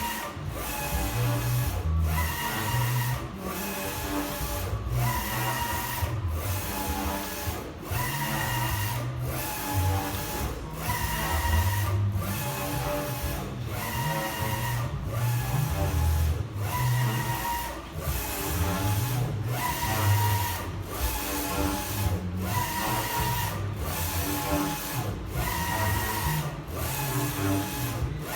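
UV flatbed printer's print carriage shuttling back and forth across the bed, its motor whining on each pass and pausing briefly at each reversal, about once a second.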